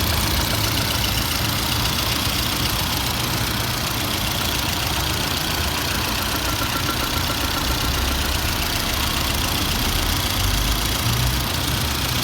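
VAZ-2113 (Lada Samara) engine idling steadily, with the extraneous noises its owner is trying to catch.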